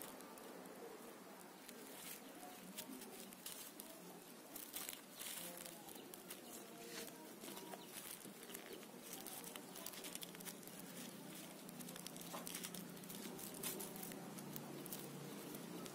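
Faint rustling and scattered small clicks of hands handling the leaves and twigs of a boni (bignay) bonsai.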